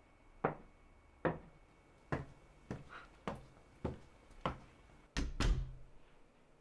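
Footsteps walking away at an even pace, about one and a half steps a second, then a louder, heavier thud about five seconds in.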